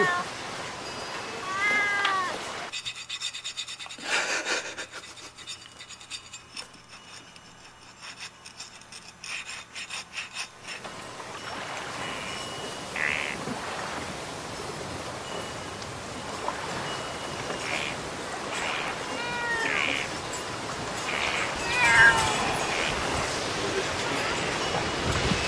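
A cat meowing in short calls, one about two seconds in, then several more close together near the end; it is a white cat held while its tail serves as an ink brush.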